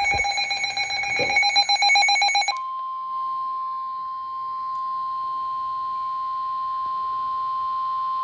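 An electronic alert beeping rapidly for about two and a half seconds. It then gives way to the NOAA Weather Radio warning alarm tone, a single steady high tone near 1 kHz held for the rest of the time, which signals that a warning broadcast is about to follow.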